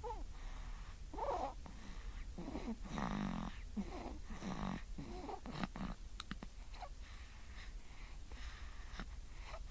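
One-and-a-half-month-old baby snoring: irregular snuffly breaths about once a second, some with a short pitched grunt. They grow quieter in the second half.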